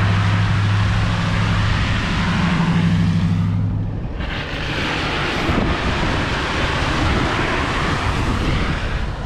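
Four-wheel drive towing a camper trailer driving through a muddy puddle: a steady engine hum over the rush of water and tyres. About four seconds in it changes to tyres running on a dirt road with wind on the microphone.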